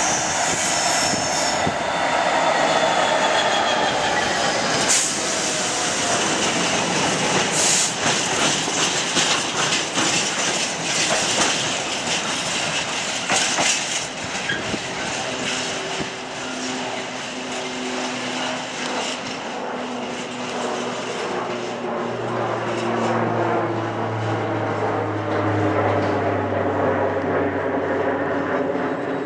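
Freightliner Class 66 diesel locomotive passing with a train of empty intermodal flat wagons: the wagon wheels clatter and click over rail joints and points. A steady low engine drone comes up in the last several seconds.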